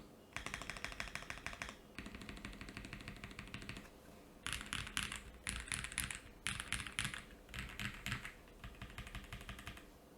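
Mechanical keyboard typing: ai03 Vega with stock Akko POM Silver linear switches on a polycarbonate plate with plate and case foam, under GMK keycaps. Two long runs of fast keystrokes are followed, from about halfway, by several shorter, louder and brighter bursts of rapid key presses.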